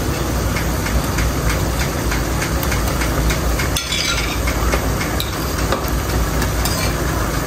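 Minced meat frying in oil in a pot, a steady sizzle over a constant low hum. About four seconds in and again near the end, tomato halves are tipped from a ceramic plate into the pot with soft plops and a light clink.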